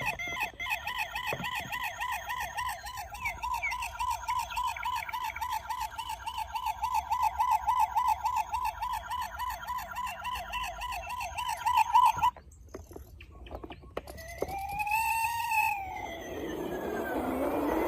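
Toy police car's electronic siren sounding a fast warble that cuts off abruptly about twelve seconds in. Short rising-and-falling pitched calls follow near the end.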